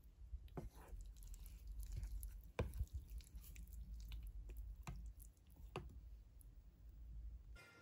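Wooden spoon stirring thick porridge in a stainless steel pot: soft squelching with a few light knocks of the spoon on the pot, over a low rumble that stops near the end.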